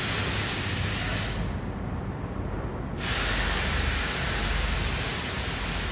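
Steady background hiss with no speech; the hiss thins out for a second or so a little over a second in, then returns.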